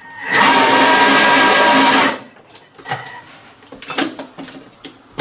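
Thermomix food processor's blade motor running at high speed for about two seconds, mincing diced ham, with a steady whine over the chopping noise. Then come a few light clicks and knocks as the machine's lid and measuring cup are handled.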